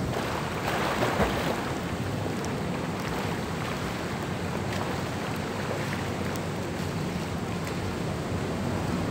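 Pool water splashing as a swimmer pushes off and ducks under about a second in, then steady wind noise on the microphone with water lapping.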